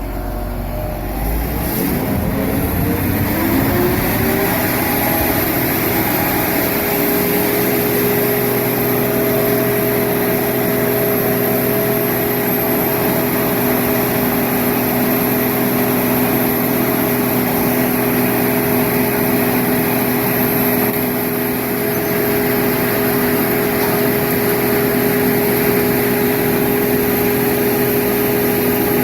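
Engine of an Al-jon 580 car logger/baler throttling up over a few seconds, then running steadily at high speed with a faint high whine.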